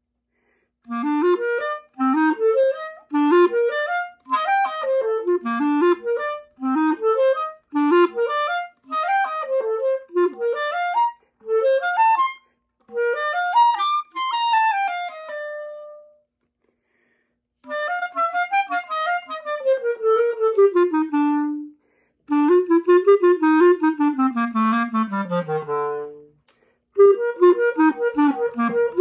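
Unaccompanied clarinet playing fast rising arpeggio figures about once a second, then longer falling runs, with brief pauses between phrases and quick repeated notes near the end.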